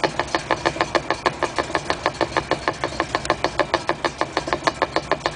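Steady rapid clicking, about six clicks a second, from the driveline of a 1956 Chrysler New Yorker turning on stands, over the low rumble of its running engine. This is the unexplained noise being traced along the propeller shaft trunnion and rear axle.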